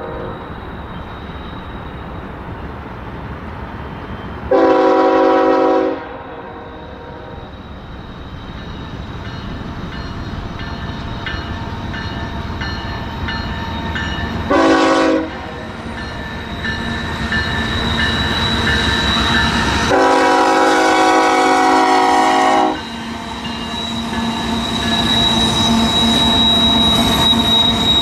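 Air horn of an approaching BNSF diesel freight train sounding three blasts: a long one about five seconds in, a short one near the middle, and a longer one about twenty seconds in. Between the blasts the engine and rail rumble grows louder as the locomotives come up and begin to pass, and a thin, steady high squeal comes from the wheels near the end.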